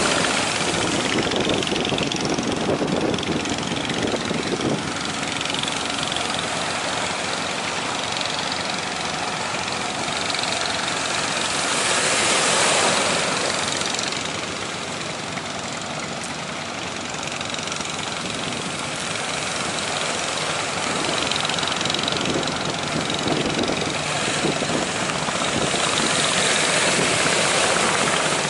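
A fishing boat's engine running steadily, mixed with the wash of the sea, which swells louder about halfway through and again near the end.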